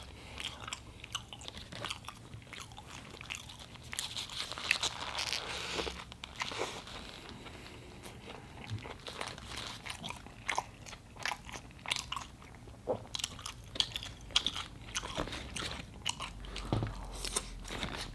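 Close-miked mouth sounds of a person eating In-N-Out fast food: a steady run of short clicky bites and chewing with no pause.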